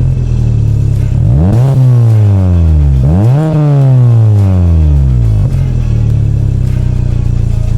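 Renault Clio petrol engine revved with two quick throttle blips, each rise sharp and the fall back slow, then settling to a steady idle a little over halfway through. It runs smoothly with no popping on a newly fitted ignition coil pack, its cylinder-one misfire cured.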